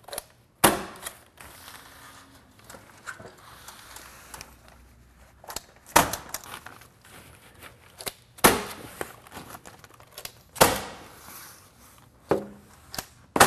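Sharp strikes of a handheld stapler fastening Tyvek DrainWrap housewrap to the wall studs, about six irregular hits, with the sheet rustling between them.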